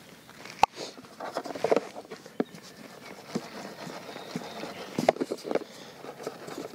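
Hands handling fishing bait over a mesh bait riddle: plastic tub and lid rustling and bait being tipped and shaken, in short scattered bursts. Two sharp clicks, one just after the start and one about five seconds in.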